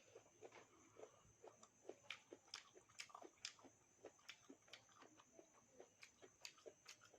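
Faint chewing and mouth sounds of a person eating: an irregular string of small clicks and crunches, several a second.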